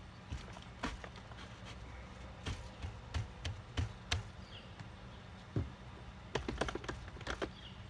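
Metal hasp and latch hardware on a wooden door being flipped over and fastened by hand: a scatter of sharp clicks and knocks, thickest in a quick cluster near the end, over a steady low hum.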